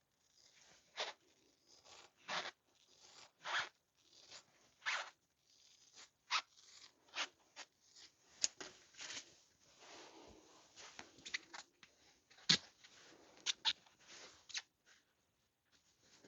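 Hand work on motorcycle seat foam: irregular short scraping and rustling strokes, a few sharper and louder than the rest.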